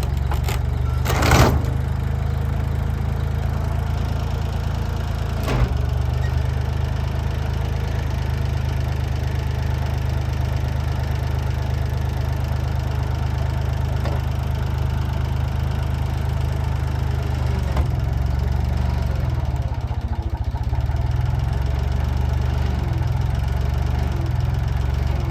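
Engine of a bucket-equipped bulldozer running steadily, with a sharp metallic knock about a second in and a lighter one a few seconds later.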